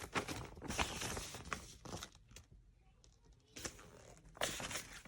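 Packaging being handled during unboxing: rustling and crinkling with scattered small clicks, a quieter stretch about two seconds in, then more rustles near the end.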